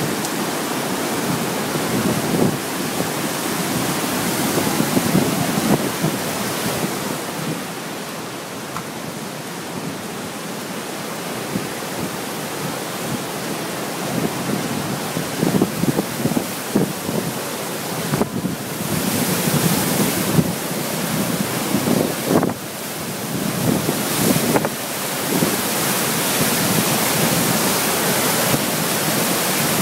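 Swollen Guadalentín river floodwater rushing at the dam, a steady roar, with wind gusting against the microphone, heavier in the second half.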